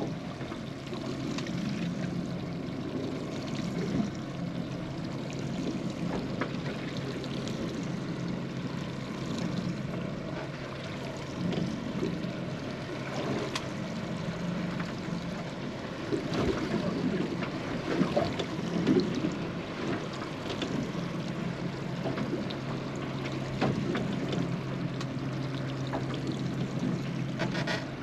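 Water sloshing and trickling against the hull of a small fishing boat at sea, with scattered small knocks and a steady low hum underneath.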